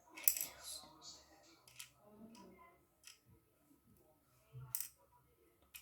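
Fidget cube being played with: irregular sharp plastic clicks from its buttons and switches, a second or so apart, over light handling noise.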